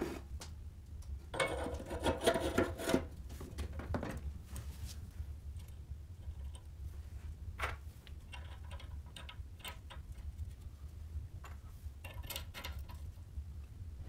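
Small metal clicks and clinks of steering-head bearing parts being handled and set onto a moped frame's steel head tube, over a steady low hum. A burst of rattling clicks comes between about one and a half and four seconds in, and a single sharp click about halfway through.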